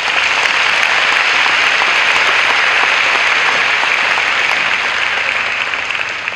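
Large audience applauding, steady and loud, beginning to die down near the end.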